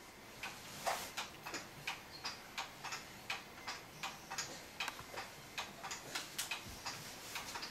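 Motorised baby swing clicking over and over, about three short ticks a second, some in quick pairs, while a toddler climbs about on its seat.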